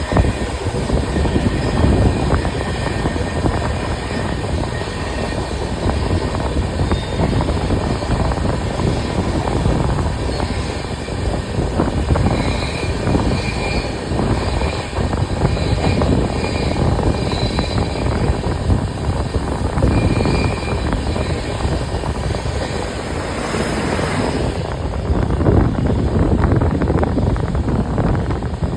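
Express trains running at speed: a steady, loud rumble and rattle of coaches on the track, with a brief rushing hiss near the end.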